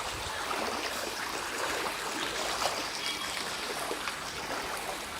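Floodwater running and sloshing in a steady, even rush.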